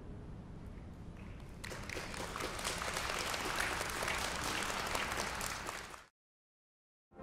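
Applause from a small audience at the end of a piano solo, starting about one and a half seconds in and cut off abruptly into silence about a second before the end.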